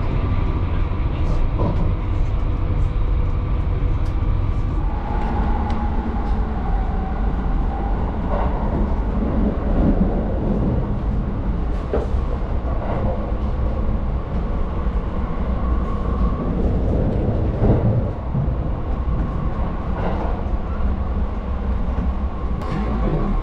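Keisei Skyliner train running, heard from inside the carriage: a steady low rumble of wheels on rail with scattered short knocks and a faint tone that comes and goes.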